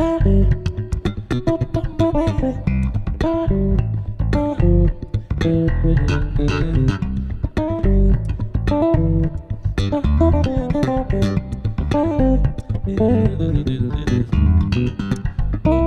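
Two bass guitars playing an instrumental duet. One keeps up a low plucked groove while the other plays a busy melody of plucked notes higher on the neck.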